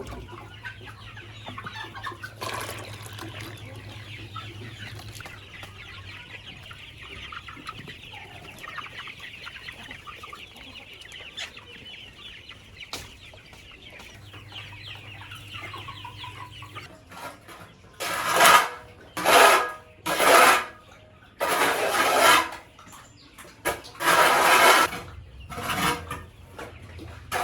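Chickens clucking and chattering softly. About two-thirds of the way in comes a run of about six loud, harsh squawks.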